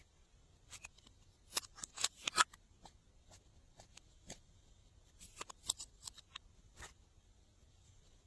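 Glossy slime being worked by hand, giving irregular sticky clicks and pops in two short clusters.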